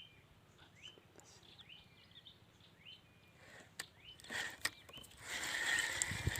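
A small bird repeating short rising chirps, about two a second. From about five seconds in, a louder rustling hiss covers them.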